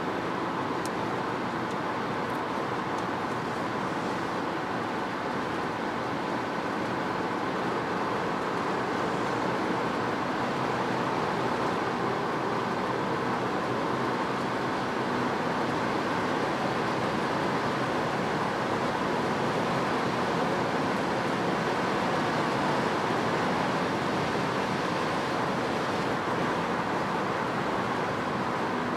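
Inside the cabin of a Peugeot 208 1.2 PureTech 110 at motorway speed, about 135 to 150 km/h: steady tyre and wind noise with the engine running underneath, rising slightly in loudness as the car gains speed.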